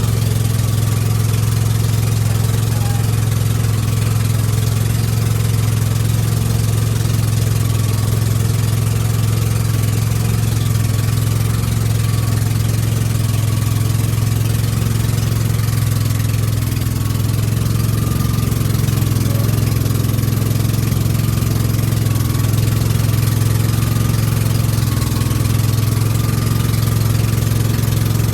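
Engine running steadily at a constant speed: an even low hum with a faint, steady high whine above it.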